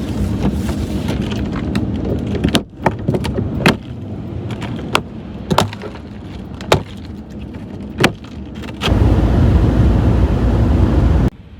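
Van driving on a snowy highway: steady road and engine rumble. It drops away after a couple of seconds to a quieter stretch with scattered sharp clicks and knocks, returns loud near the end, then cuts off abruptly.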